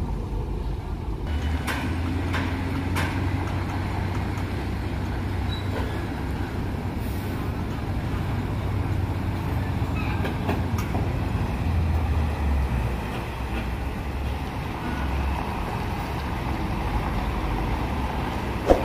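Scania G440 tractor unit's diesel engine running at low revs while the cement tanker rig moves slowly, a steady low rumble with a few scattered clicks and knocks. There is one sharp knock just before the end.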